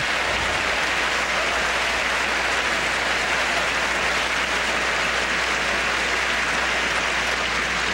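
Large tennis stadium crowd applauding steadily after a point is won.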